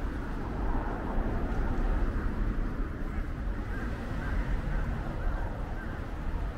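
Outdoor city-park ambience: a steady low rumble of distant traffic, with a quick run of about five short bird calls from about four seconds in.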